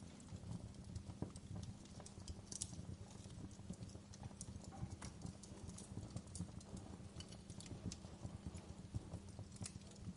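Wood fire crackling: a faint, dense low crackle with frequent irregular sharp snaps and pops.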